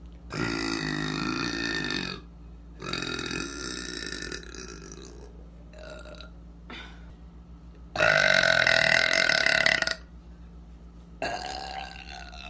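A young woman burping repeatedly: four long drawn-out burps of one and a half to two seconds each, with a short one between them. The loudest comes about eight seconds in.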